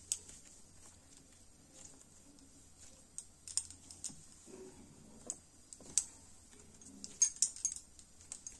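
Quiet handling of kneaded wheat dough on a wooden board as balls are pulled off and shaped, with scattered light clicks from the bangles on the wrist clinking, clustered about seven seconds in.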